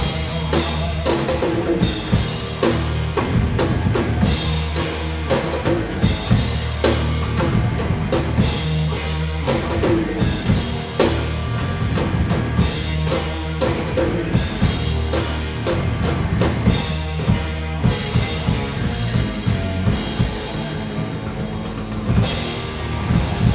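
Rock music driven by a drum kit, with kick and snare hits over a held bass line.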